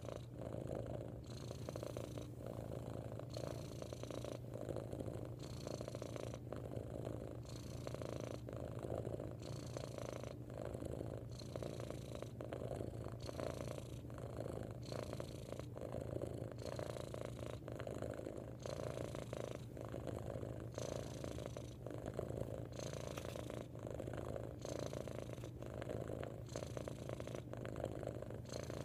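Domestic cat purring loudly and steadily, the purr changing in a regular rhythm with each breath in and out.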